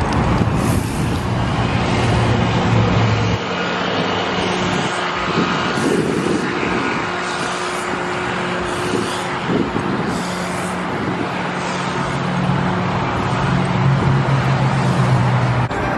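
Steady road traffic noise with car engines running: a low engine drone that drops away about three seconds in and returns near the end.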